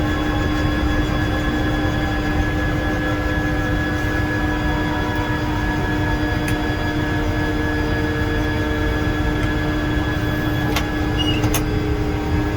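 Tour helicopter in flight: a steady drone from the engine and rotor, with constant high tones running over it. Two brief clicks come near the end.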